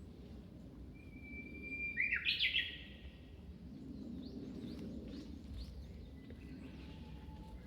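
Japanese bush warbler singing its hoo-hokekyo song once: a long steady whistle starting about a second in, ending in a quick loud run of sharp notes. Fainter short chirps follow over a steady low background noise.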